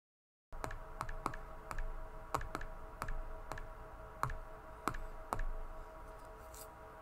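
Logitech Crayon stylus tapping on an iPad Pro's glass screen: about a dozen sharp, irregular clicks, thinning out after about five seconds.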